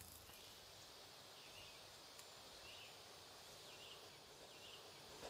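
Near silence: faint outdoor ambience with a few soft, scattered chirps.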